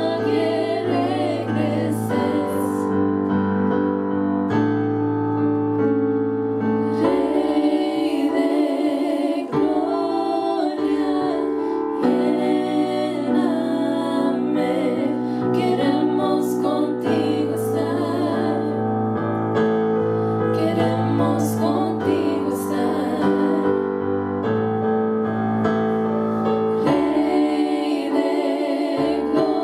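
Three women singing a worship song together into microphones, over keyboard accompaniment that holds sustained chords changing every couple of seconds.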